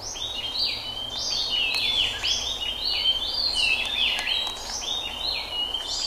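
Birds chirping rapidly, many short falling notes overlapping one another, over a steady background hiss.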